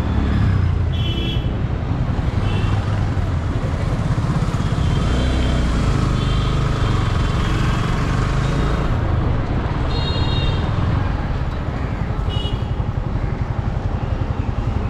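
Yamaha R15 V3 motorcycle engine running steadily while riding in city traffic, its pitch shifting slightly with the revs. Wind rushes over the microphone, and a few short high beeps of traffic horns sound now and then.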